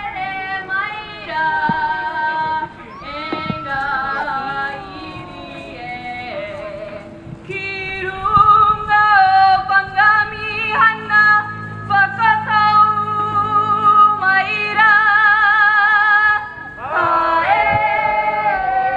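Group singing of a Māori song, women's voices leading with long held notes that glide and waver; low steady notes sound underneath for several seconds in the middle.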